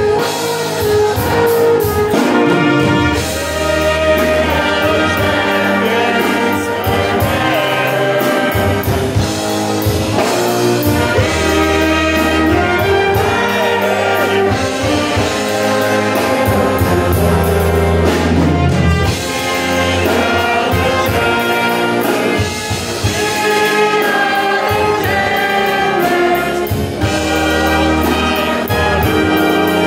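Brass band playing a rock arrangement live. Four trumpets play over tuba and tenor horns, backed by a drum kit keeping a steady beat.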